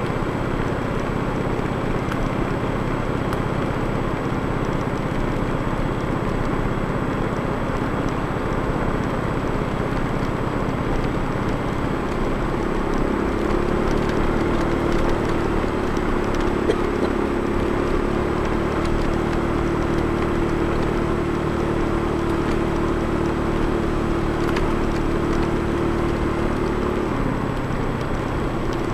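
Motorcycle engine running steadily at road speed, with road and wind noise. About halfway through a steady, higher drone joins the engine note and holds until shortly before the end.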